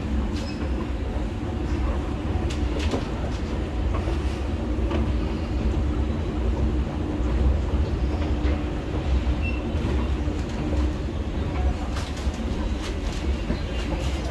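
Escalator running on the way down: a steady low mechanical rumble with a faint hum, broken by scattered sharp clicks.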